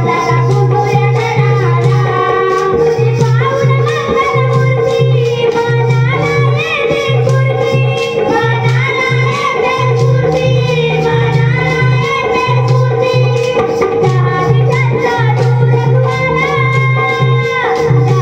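Music: a voice singing over a pulsing bass line and quick, steady percussion.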